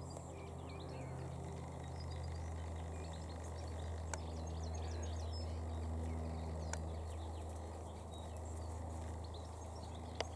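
Small birds chirping and trilling over a steady low hum, with sharp clicks about four, seven and ten seconds in.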